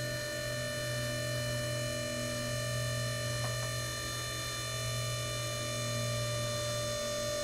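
Snorkel UNO 33E electric boom lift humming steadily as its platform is lowered, the test run of a freshly repaired bucket-tilt cylinder.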